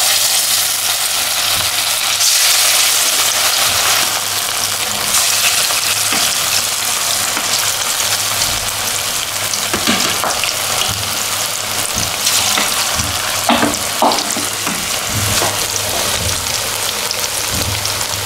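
Battered chicken pakora pieces deep-frying in hot oil in a steel wok: a steady sizzle, with a few short clicks near the middle.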